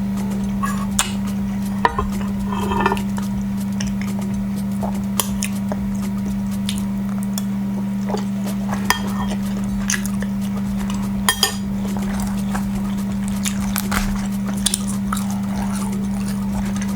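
A steady low drone, like a held background music note, with scattered sharp clinks of cutlery against dishes.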